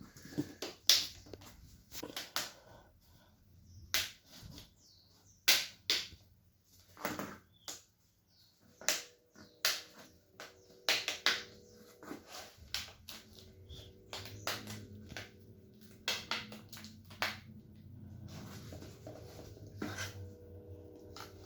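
Plastic clips of a laptop's screen housing snapping into place as it is pressed together by hand: a long, irregular series of sharp clicks and snaps.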